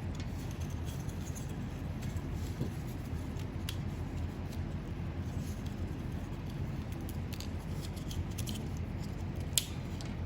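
Scroll saw running and cutting through a thick wooden block, a steady hum with scattered small ticks of chips and waste breaking away. A single sharp click near the end.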